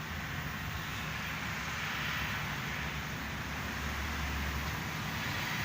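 Steady background vehicle and traffic noise with a low hum.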